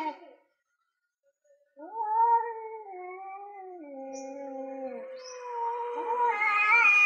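Two tomcats caterwauling at each other in a territorial standoff: long, drawn-out yowls that waver up and down in pitch, the threat calls of males before a fight. One yowl tails off at the start, and after a short gap a long yowl begins about two seconds in. Near the end a harsher, louder yowl joins it.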